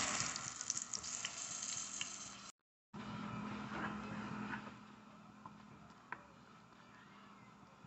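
Plantain slices frying in hot oil in a pan, a dense crackling sizzle. After a short break the sound turns to a thick lentil soup being stirred in a metal pot with a spoon, much quieter and fading, with a small knock about six seconds in.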